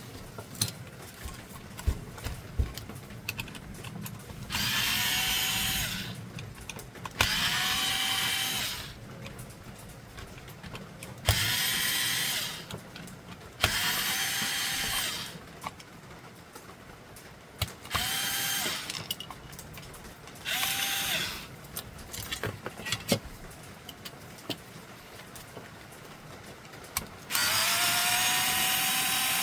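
Electric screwdriver running in short bursts of one to two seconds, about seven times, each one spinning up to a steady whine, as screws are backed out of an inkjet printer during disassembly. Small clicks and knocks of handling plastic parts come between the bursts.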